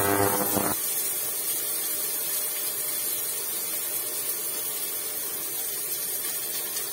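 Mustard oil sizzling steadily in a pressure cooker, with garlic and chopped onion frying in it. A brief pitched sound is heard in the first second.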